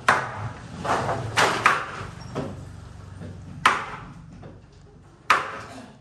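Irregular sharp knocks of wood being struck, about seven in six seconds, each with a brief ringing tail; the loudest come at the start, just past halfway, and near the end.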